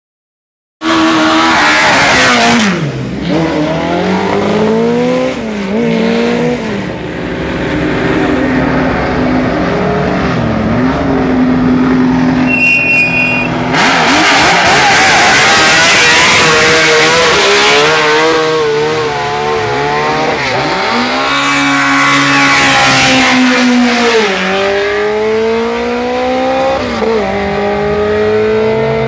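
Matra single-seater racing car engines idling and being blipped, the pitch sweeping up and down again and again. The revving is loudest about halfway through, when one car close by is pushed to high revs.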